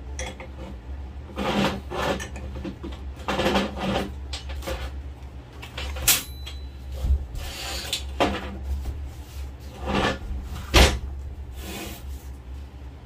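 Scattered metal clinks and clanks from a combination wrench working the nuts on a steel motorcycle sprocket and from the sprocket being handled on a metal workbench, with a steady low hum underneath.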